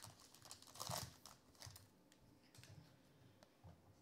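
Plastic wrapper of a trading card pack being torn open and crinkled, loudest about a second in, then quieter crackles of the wrapper being handled.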